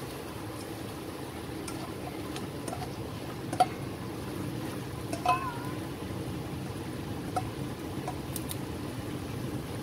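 Broth bubbling at a simmer in a pot while chopped napa cabbage is scraped into it from a stainless steel bowl with a spatula, with a few light clinks of the spatula against the metal bowl.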